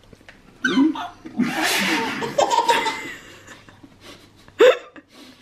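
A man laughing heartily in long, breaking peals, with a short loud outburst near the end.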